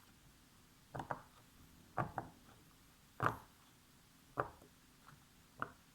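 Silicone pop-it fidget toy being pressed, giving short sharp pops about once a second, some in quick pairs.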